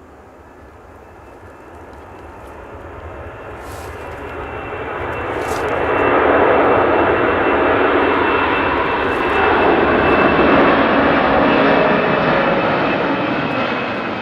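Boeing 747-400's four jet engines at takeoff power as the airliner takes off. The roar grows steadily louder over the first six seconds, stays loud, then eases a little near the end.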